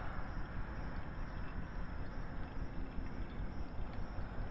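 Steady rush of water circulating through an indoor pond's sump filter, driven by its sump pump, with a few faint ticks.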